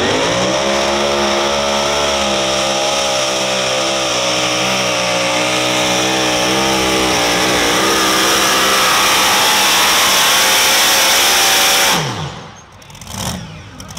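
Super modified two-wheel-drive pulling truck's engine revving up hard at launch, then running flat out under load as it drags the weight sled, its pitch wavering as the load changes. It cuts off abruptly about twelve seconds in as the pull ends.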